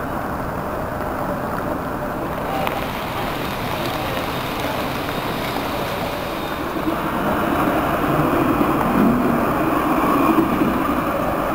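Tram on Lyon's T1 line passing along the street. Its rumble swells from about seven seconds in, is loudest near ten seconds, then eases slightly, over steady city traffic noise.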